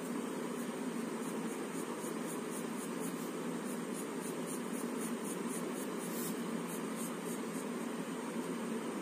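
Pencil sketching on paper: a run of short scratchy strokes, a few a second, with one longer stroke about six seconds in. Under them runs a steady background hum and hiss.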